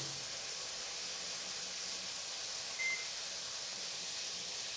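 A single short electronic beep from a microwave oven's keypad, about halfway through, as the timer is set for one more minute. A steady low hiss runs underneath.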